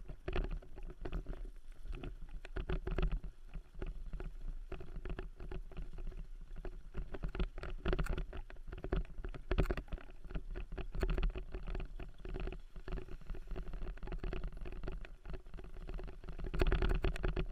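Dryland mushing rig pulled by a husky team, running along a leaf-covered dirt trail: a continuous low rumble with dense, irregular rattling and clicking from the rig over the rough ground.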